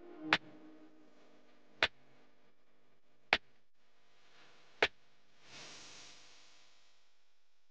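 Four sharp clicks, evenly spaced about a second and a half apart, then a short whoosh about two-thirds of the way through: edited-in sound effects for an animated end screen.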